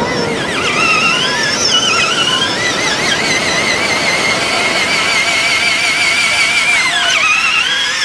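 Electric drive motor and gears of a large toy RC monster truck whining as it drives on sand, the pitch wavering up and down with the throttle and holding steady for a few seconds in the middle.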